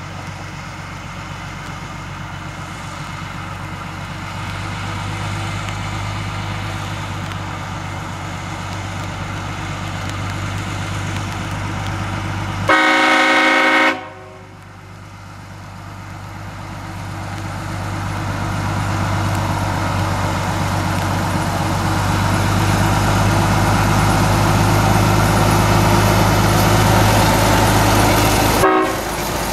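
Planet narrow-gauge diesel locomotive running, its engine drone growing louder, with one horn blast of just over a second near the middle. Afterwards the engine falls away and builds up again, until a sudden break shortly before the end.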